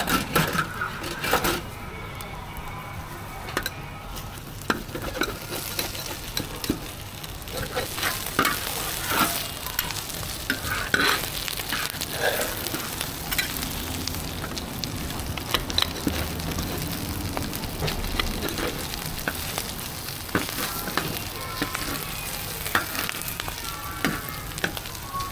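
Sanxian doupi sizzling as it pan-fries slowly over low heat on a large flat iron griddle to crisp its base. A metal spatula scrapes and taps against the pan many times as the sheet is cut into squares.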